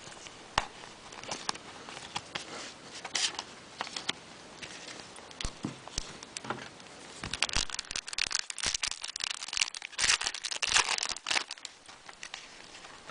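Crinkling and tearing of a foil trading-card pack wrapper being opened and handled, with scattered clicks at first and a dense stretch of crackling in the second half.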